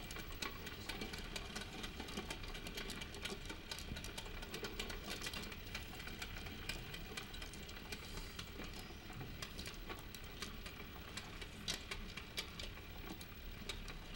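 Mahjong tiles clicking against one another and the table as players sort and handle their tiles: a busy, irregular run of small clicks.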